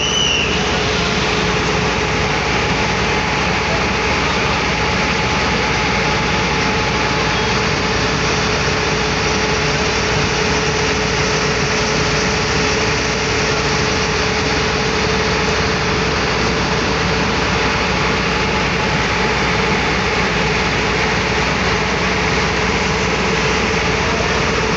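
Fire truck's engine running steadily at a constant speed, a continuous loud drone with a steady hum.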